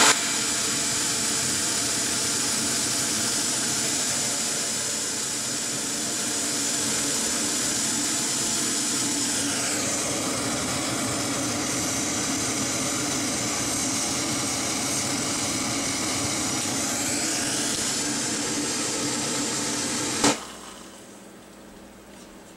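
MSR MicroRocket canister stove burning at full flame, a steady rushing hiss of the gas burner. About 20 seconds in the valve is shut: a click, and the burner noise cuts off.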